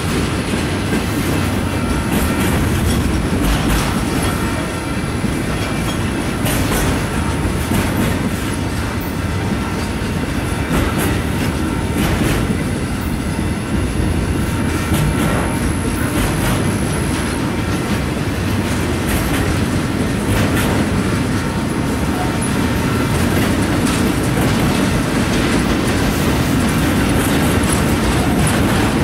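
Steel wheels of a long string of loaded flatcars rolling past close by: a steady rumble with irregular clicks as the wheels cross rail joints, and a faint thin high whine that fades out a little over halfway through.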